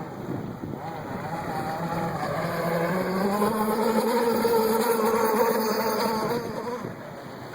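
RC catamaran's 5 hp Gizmo Motors two-stroke gas engine running at speed, rising in pitch about two seconds in and growing louder, then fading away near the end.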